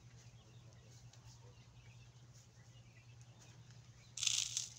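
Faint bird chirps over a steady low hum, then a loud burst of hissing noise about four seconds in, lasting about half a second.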